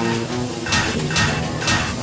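Cartoon background music with a sharp percussive hit about every half second.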